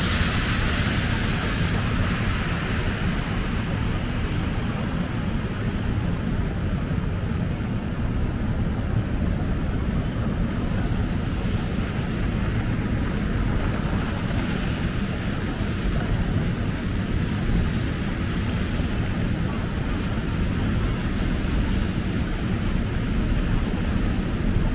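Rainy city street ambience: a steady rumble of traffic, with the hiss of tyres on wet pavement loudest in the first couple of seconds as a car passes.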